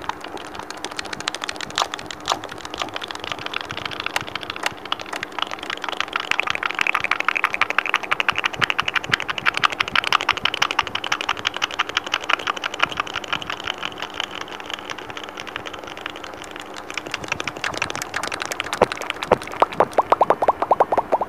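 Rapid fingertip tapping close to a microphone, a dense run of quick light clicks like typing, over a steady low hum. Near the end the taps turn faster, more even and duller.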